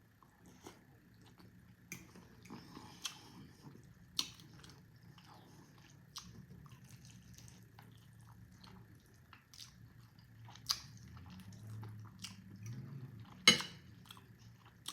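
A person chewing and biting food close to the microphone: soft, wet mouth sounds broken by scattered sharp clicks, the loudest about a second and a half before the end.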